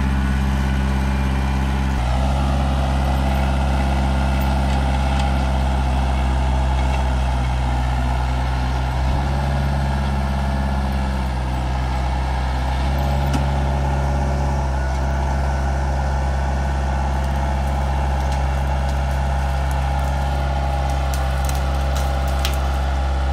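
Kubota L4200 tractor's four-cylinder diesel engine running steadily as the front loader is worked. Its note shifts slightly twice, a little before and a little after halfway through, and a few sharp clicks sound near the end.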